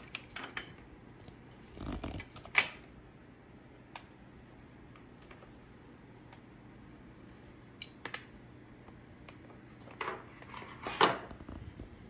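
Handling noise from a metal USB-C docking station and its cables being picked up and moved about: scattered clicks and rustles, with the sharpest click about two and a half seconds in and a louder cluster of knocks near the end.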